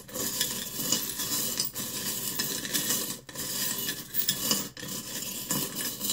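Small charms and letter beads being stirred by hand in a glass bowl: a continuous rattling clink, broken by three brief pauses.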